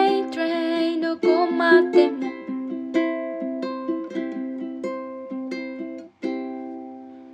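Closing bars of a song played on a plucked string instrument: picked notes that grow sparser, then a final chord about six seconds in that rings out and fades.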